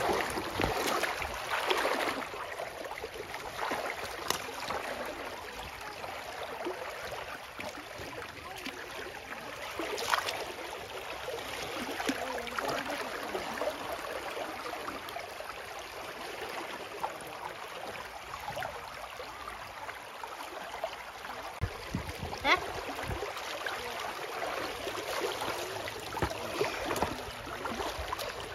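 Shallow pond water splashing and sloshing as hands grope inside a bamboo polo fish trap held down in the water, with a few sharper splashes now and then.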